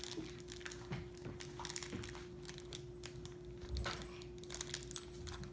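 Faint scattered rustling and small clicks of handling, over a steady faint hum.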